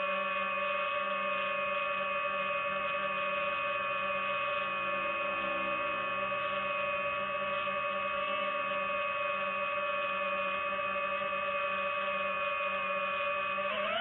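Quadcopter drone's propellers and motors whining steadily at a constant pitch, as when hovering; the pitch starts to waver right at the end as the motors change speed.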